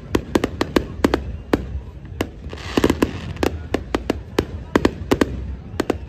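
Fireworks display: aerial shells bursting in a rapid, irregular string of sharp bangs, several a second, thickest about halfway through.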